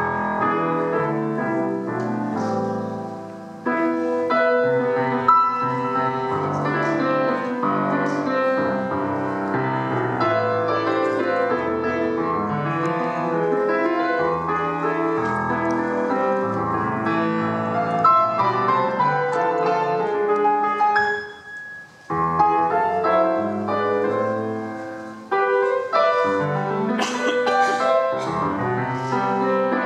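Grand piano played solo: a dense, chordal Argentine folk-dance piece, with short breaks in the playing a few seconds in and twice around two-thirds of the way through.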